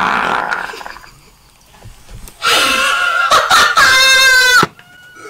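A woman's shrill, high-pitched scream, held for about two seconds in the second half and cutting off suddenly. A shorter noisy vocal outburst comes at the start.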